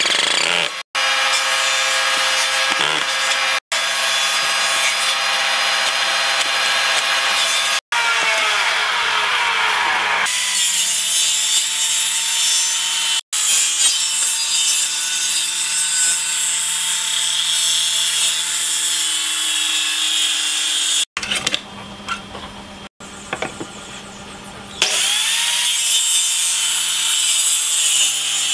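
A cordless drill boring into steel angle iron, then a corded circular saw cutting through a thick wooden board, its motor whining at a steady pitch under the hiss of the blade in the wood. Near the end the saw spins up again with a rising whine and cuts on.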